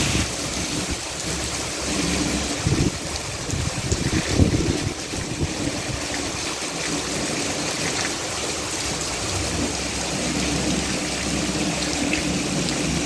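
Heavy rain pouring down steadily in a downpour.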